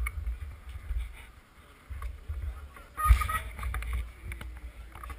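Low, uneven rumble of wind buffeting an action camera's microphone, with faint voices of a waiting crowd of cyclists and a brief louder noise about three seconds in.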